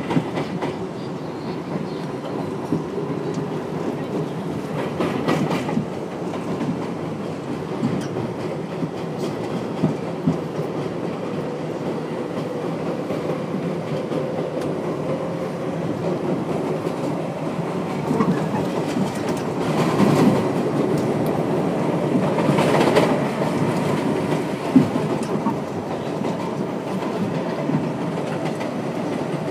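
Inside an R62A subway car running along elevated track: the steady rumble of the car with wheels clacking over rail joints. It swells louder for a few seconds about two-thirds of the way through, with a few sharp clicks.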